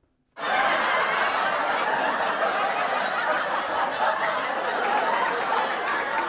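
An audience laughing hard and without a break, starting suddenly about half a second in after silence.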